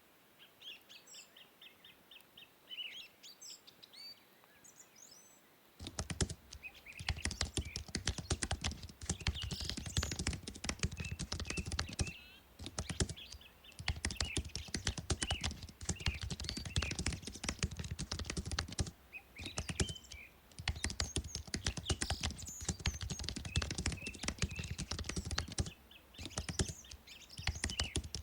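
Birds chirping for about the first six seconds, then fast typing on a computer keyboard in runs of rapid key clicks broken by short pauses, with the birds still chirping behind it.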